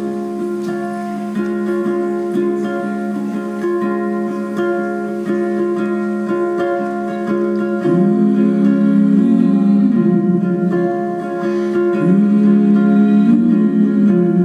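Ukulele playing under held, hummed vocal harmonies; about halfway through a moving vocal line comes in above the held notes.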